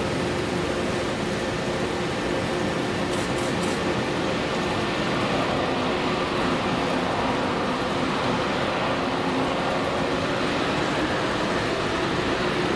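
Boeing 777-200ER's twin Rolls-Royce Trent 800 turbofans at takeoff power, heard from a distance: a steady rush of jet noise with a few faint held tones, growing slightly louder after the first few seconds.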